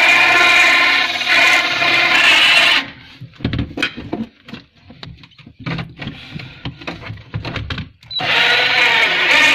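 Power drill driving a 54 mm hole saw into a wooden cabinet panel, the motor whining under load as the blade grinds through the wood. About three seconds in it breaks off to a few seconds of short irregular knocks and scrapes, then runs and cuts again near the end. The hole saw is not very sharp, so the cut goes slowly.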